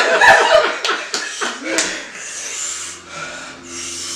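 Laughter dying down about a second in, then rasping, hissing breaths through the mouth, a reaction to the burn of extremely spicy noodles.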